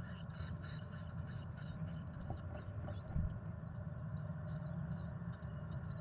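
Steady low rumble heard inside a wooden nest box, with one soft thump a little over three seconds in as the adult chickadee moves about and leaves the box.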